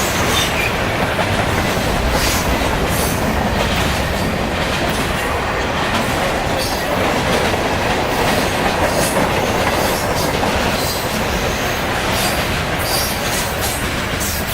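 Freight train cars rolling past on the rails: a steady rumble of wheels on track with repeated clicking from the rail joints.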